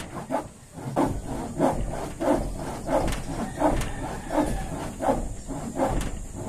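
A steady rhythm of short rasping strokes, about three every two seconds, from hand work on the roof.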